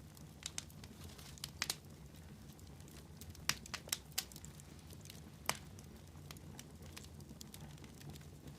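Wood fire burning, logs crackling and popping: a low steady rumble of flame with scattered sharp pops, the loudest a few seconds in and one near the middle.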